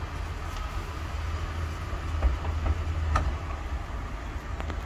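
Low, steady rumble of an idling vehicle engine heard inside a van's cabin, with a few faint clicks.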